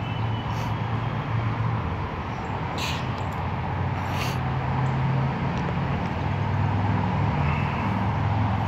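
Steady low rumble of vehicles, growing slightly louder, with two short hisses about three and four seconds in.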